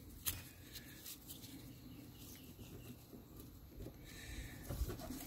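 Faint scattered clicks and rustling of nitrile-gloved hands threading and pulling a plastic zip tie around a rubber hydraulic cylinder seal.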